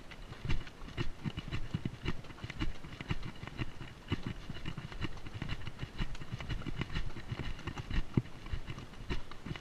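Horse walking on a rocky dirt trail, heard from the saddle: irregular dull hoof thumps with sharper clicks where shod hooves strike rock.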